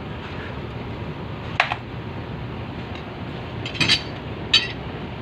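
Three sharp metal-on-metal clinks, about a second and a half in, near four seconds in and again just after, from metal tools striking or being handled against sheet metal during dent repair on a vehicle body, over a steady background noise.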